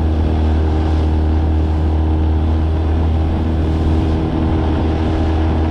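Small outboard motor running steadily under way, pushing an inflatable boat at speed.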